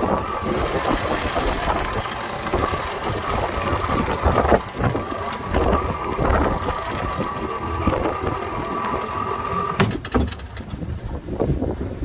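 A boat's motor running, with wind buffeting the microphone. A steady high whine runs over it and cuts off sharply about ten seconds in, leaving mostly wind.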